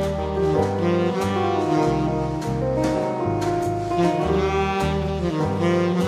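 Instrumental jazz background music: a saxophone-like lead over a bass line that steps from note to note, with a steady beat.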